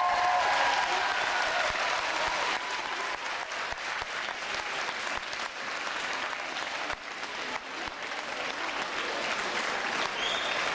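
A large crowd applauding, the clapping easing off a little toward the end.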